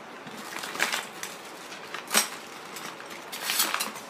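Hands rummaging for a tool: several short rustles and light clicks of things being handled, the sharpest about two seconds in and a cluster of rustling near the end.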